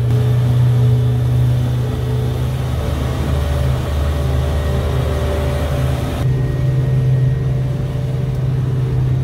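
Outboard motors of a small fishing boat running steadily with the boat under way, a constant low engine hum with a rush of wind and water over it. The rushing hiss above the hum drops abruptly about six seconds in.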